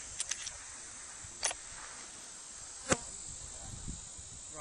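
Steady high-pitched buzz of insects in a summer field, with a few light clicks, then a sharp, loud rifle shot right at the end.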